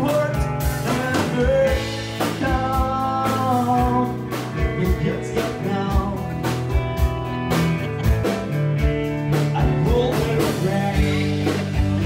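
Live singer with an electric guitar performing a rock-and-roll or blues-style song over a steady beat, with sung vocal lines.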